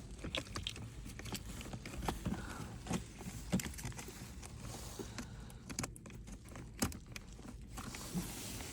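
Scattered, irregular clicks and light knocks of hands handling wiring and plastic trim in a car's centre console around the gear shifter.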